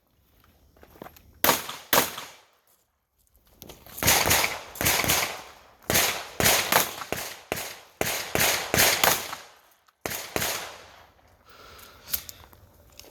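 Handgun shots fired in a course of fire: two shots, then after a pause a fast string of about a dozen shots in quick succession, each sharp crack trailing off in echo, followed by quieter, scattered sounds near the end.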